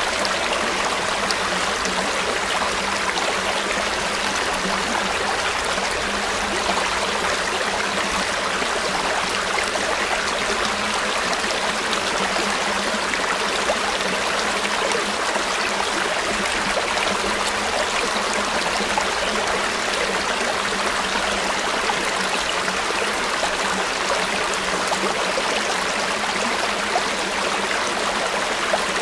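River water flowing steadily over stones, a continuous rushing with small splashes and gurgles.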